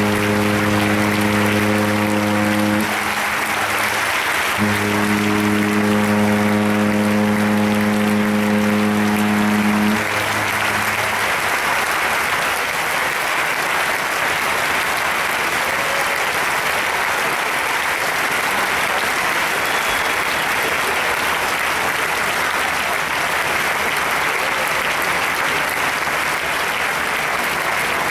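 Cruise ship's horn sounding two long, deep, steady blasts: the first stops about three seconds in, and the second runs from about four and a half seconds to about ten seconds in. Applause runs under it and carries on after the horn stops.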